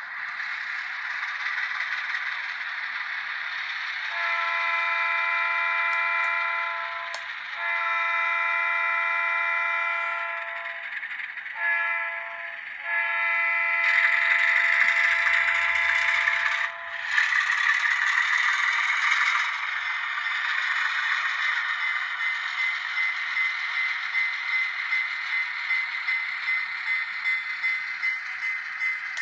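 Sound decoder in an HO scale Alco C424 model locomotive, playing through its small onboard speaker: the diesel prime mover running steadily. The horn is blown in the grade-crossing pattern of two long blasts, one short and one long, after which the engine sound runs on alone.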